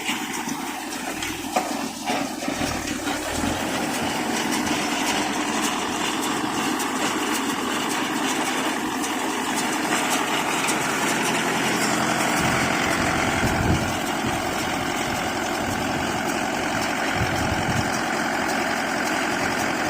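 Mahindra Yuvo 475 tractor's diesel engine running steadily.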